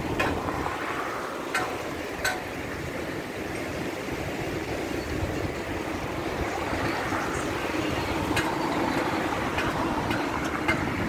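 Street ambience heard from a moving bicycle: a steady rush of road traffic and wind, growing a little louder toward the end, with a few sharp clicks.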